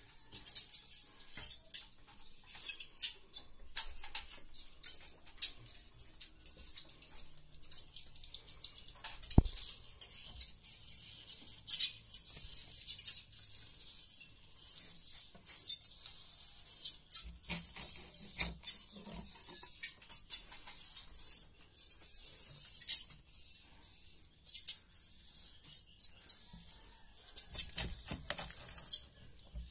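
Edible-nest swiftlets twittering densely and high-pitched without a break: the 'suara inap' roosting call of a swiftlet house. Scattered sharp clicks run through it, with a single knock about nine seconds in.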